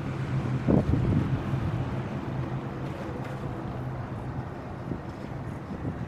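Wind buffeting the microphone over a low, steady rumble of city traffic, with a single short thump about a second in.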